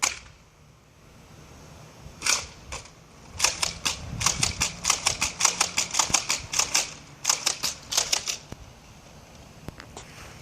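Nerf Deploy CS-6 dart blaster being primed and fired again and again: a quick run of sharp plastic clicks and snaps, about three or four a second, with a short pause before a last handful.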